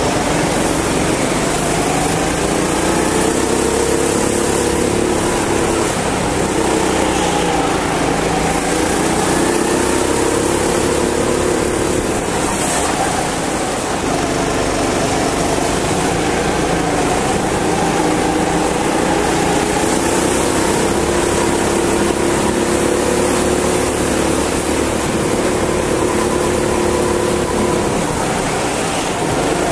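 Go-kart engine heard from on board under racing load, its pitch climbing and falling several times as the kart accelerates out of corners and slows into them, over a steady hiss.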